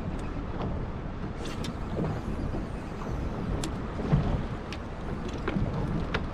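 Wind rumbling on the microphone and small waves slapping against the hull of a small boat, with a few soft thuds and light ticks.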